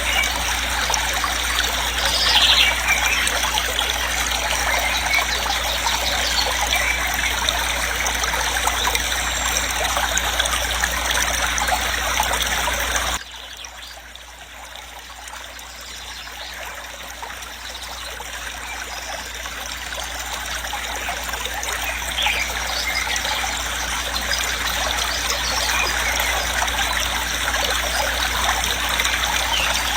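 Waterfall rushing in a steady, even wash of water noise. About thirteen seconds in it drops suddenly to much quieter, then slowly builds back to its earlier loudness.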